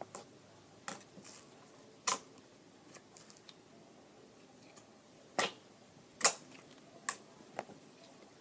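Slime being handled, giving sharp clicks and pops at irregular intervals, about half a dozen, the loudest about six seconds in.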